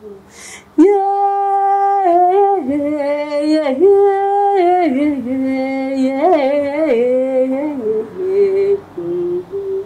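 A woman's solo singing voice holding long, steady notes that step up and down in a slow melody, starting about a second in, with softer, lower notes near the end.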